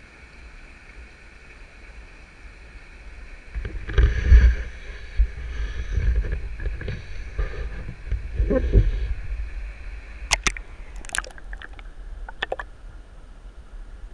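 Stream water sloshing and gurgling against a GoPro's waterproof housing at the surface, with a stretch of heavier low rumbling sloshing, then a few sharp clicks and knocks near the end.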